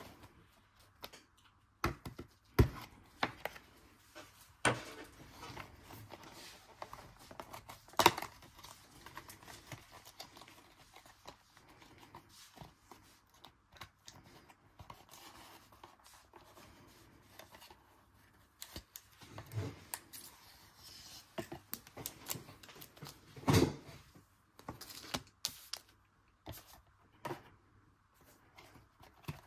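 Small cardboard card box and its wrapping being handled and opened by hand: scattered taps, clicks and tearing, crinkling rustles. Between them come a few sharper knocks, the loudest about eight seconds in.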